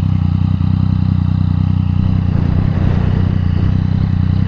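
Yamaha MT-09's three-cylinder engine with an Akrapovič exhaust, running steadily at constant revs.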